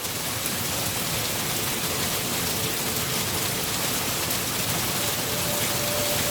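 Rain falling steadily: an even, dense hiss with no single drops standing out and no thunder.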